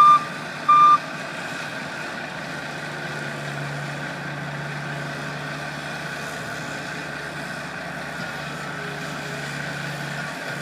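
A backup alarm beeps twice in the first second. After that, the diesel engines of a skid-steer loader and a dump truck run with a steady low drone, a little stronger while the loader lifts a bucket of snow up over the truck bed.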